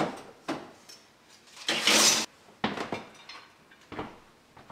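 Baking dishes going into an electric oven: several knocks of pans on the metal oven racks and one louder scraping slide about two seconds in.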